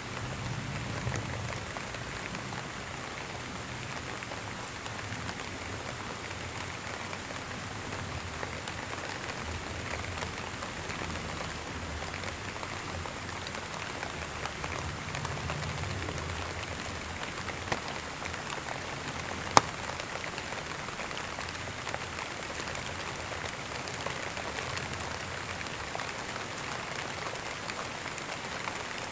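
Steady rain falling on a surface, with scattered drop ticks and one sharp, louder tick about two-thirds of the way through. A low rumble swells now and then underneath.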